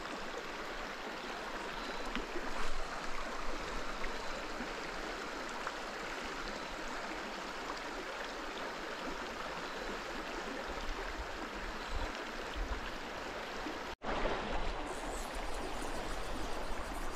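Steady rush of a mountain trout stream's flowing water, cutting out for an instant about fourteen seconds in.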